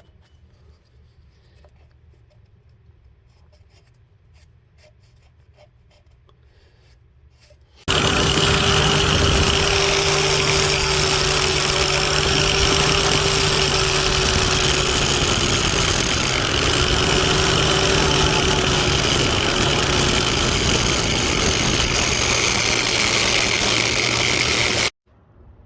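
Faint handling clicks, then about eight seconds in a power grinder comes on loud and runs steadily for about seventeen seconds, working a steel washer into a small patch piece, before stopping abruptly.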